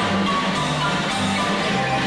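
Large marimba played by three players, with electric bass guitar and drum kit, in a live band performance. The marimba holds notes above a moving bass line.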